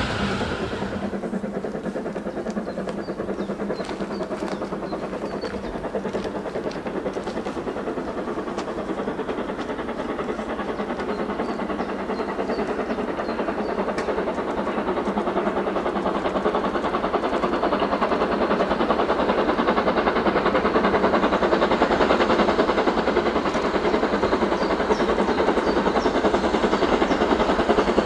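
BR Standard Class 2MT steam locomotive 78018 approaching with its train, working steam. The sound grows steadily louder as it nears.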